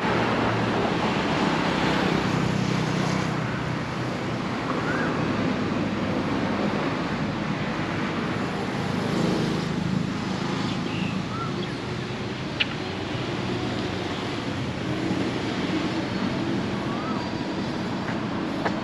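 Outdoor street ambience: a steady hum of motor traffic engines, swelling and easing as vehicles pass, with a few short bird chirps and one sharp click about two-thirds of the way through.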